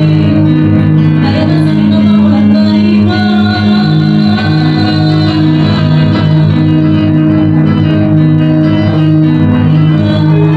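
Electronic keyboard playing an instrumental introduction: sustained organ-like chords over a steady bass line.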